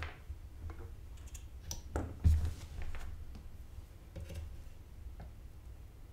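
Scattered light clicks and taps from handling a soldering iron and solder wire against a circuit board, with one louder low thump a little over two seconds in.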